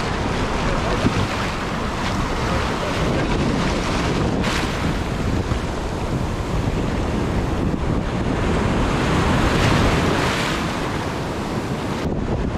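Ocean surf breaking and washing around, with wind rumbling on the microphone; a wave swells louder about ten seconds in.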